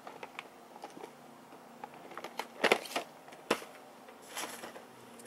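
Boxed toy figures being handled in a cardboard shipping box: scattered light taps, clicks and rustles of cardboard and plastic packaging, with a few louder knocks around the middle.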